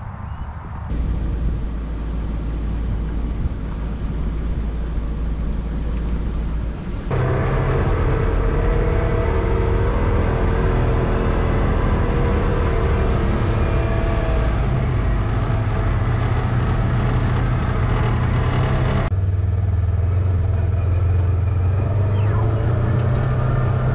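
Polaris Ranger side-by-side running as it is driven, heard from inside the cab, a steady engine hum with road and wind noise. The sound shifts abruptly about a second in, about 7 s in and about 19 s in, as separate driving clips are cut together.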